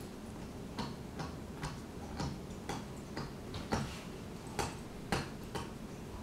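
A dog gnawing a Goughnut hard rubber chew toy: short, sharp, irregular clicks of teeth on rubber, about two a second.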